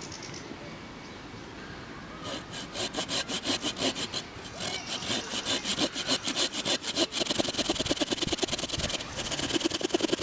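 Laplander folding saw cutting a shallow stop cut, about half an inch deep, into a sweet chestnut log. Quick back-and-forth strokes, about four a second, start about two seconds in and speed up toward the end.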